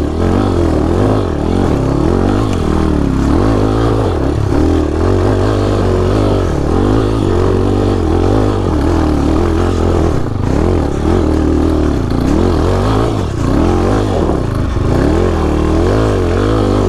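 Small single-cylinder dirt bike engine on a trail, its pitch rising and falling over and over as the throttle is worked on and off.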